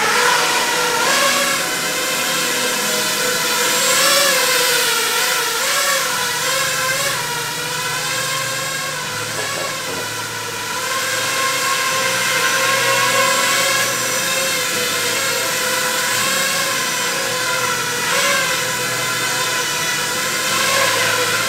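A 5-inch FPV quadcopter in flight: the high whine of its four motors and propellers, wavering up and down in pitch as the throttle changes, with brief swells every few seconds.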